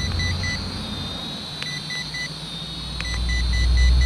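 Toy RC transmitter beeping in three quick runs of short beeps, each run following a button click, as the flip button is tried; the flip does not work on this quad. Under it runs the steady high whine of the Helicute H818HW quadcopter's motors and propellers hovering close by, with wind rumbling on the microphone.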